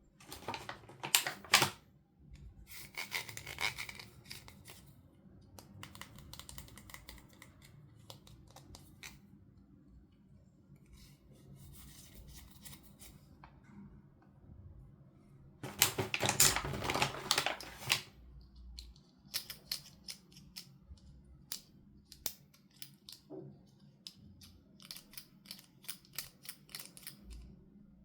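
Toy packaging being opened and handled: bursts of rustling and tearing of plastic and cardboard, the loudest about a second in and again around the middle, with scattered light clicks and taps between and a quick run of clicks near the end.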